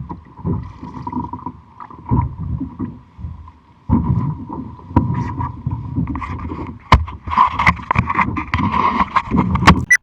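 Water sloshing and slapping against a kayak hull in uneven surges, with a faint steady whine underneath. A few sharp knocks and brighter splashing come near the end before the sound cuts off suddenly.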